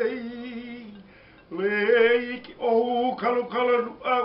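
A single voice singing slow, drawn-out held notes in short phrases, with a pause about a second in before the next phrase begins.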